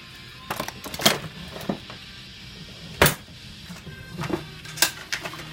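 Scattered sharp clicks and knocks of small tools and objects being picked up and set down on a tabletop, about six in all, the loudest about three seconds in.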